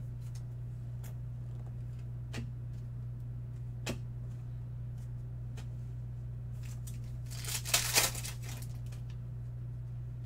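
Trading-card pack being handled: a few light ticks of cards and wrapper, then about three-quarters of the way through a short, loud crackling burst of the pack's foil wrapper being torn open. A steady low hum sits underneath.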